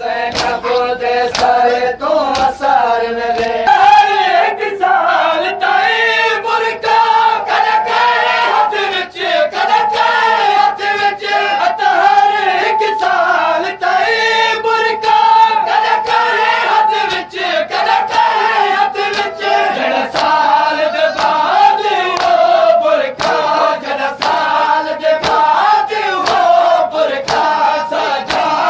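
A group of men chanting a Shia lament (nauha) in unison, with hands striking their chests in a steady beat (matam) throughout.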